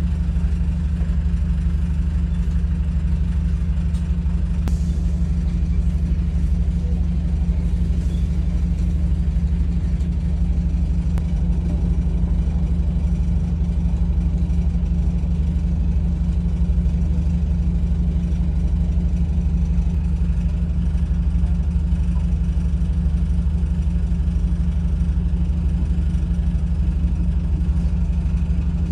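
A vehicle engine running steadily, a constant low hum that holds its pitch without revving or rhythmic knocks.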